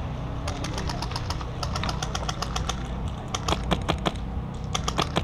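Airsoft guns firing in the game: irregular runs of sharp clicks and snaps from shots and BB impacts, thickest about three and a half seconds in and again near the end, over a steady low hum.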